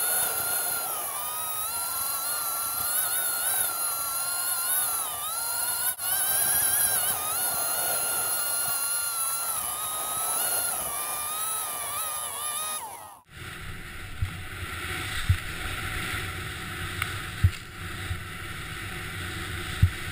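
Snowmobile engine running at high revs, its whine rising and falling with the throttle. About thirteen seconds in it cuts off abruptly and gives way to a steady rush with a few low thumps, from riding a snowboard down through powder.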